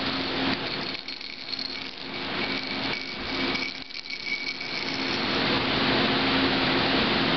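Green plastic baby rattle being shaken, a rattling noise over a steady whirring hum.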